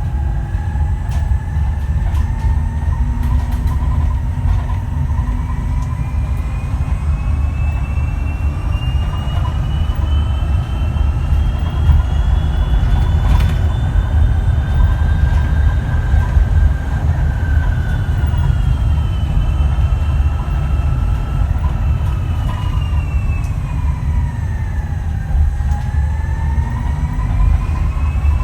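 Electric drive whine of a Switch Metrodecker EV double-decker bus's ZF AxTrax AVE electric axle, its pitch climbing slowly as the bus gathers speed, falling for several seconds as it slows, then climbing again near the end. A steady low rumble of the moving bus runs underneath.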